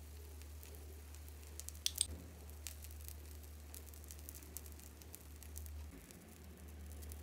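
Metal spoon spreading tomato sauce over potato rounds in a nonstick frying pan: soft wet scraping with scattered light clicks of the spoon, two sharper ones about two seconds in. A steady low hum runs underneath.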